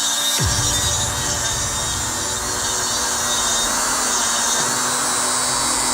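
A power grinder grinding down the locating nub inside a motorcycle handlebar control housing, a steady whir of the spinning tool working against the part.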